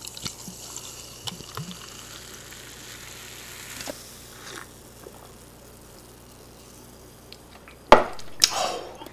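Sprite poured from a plastic bottle into a ceramic mug, fizzing with a steady hiss for about four seconds. Near the end comes a sharp knock as the mug is set down on a wooden board, then a short breathy exhale.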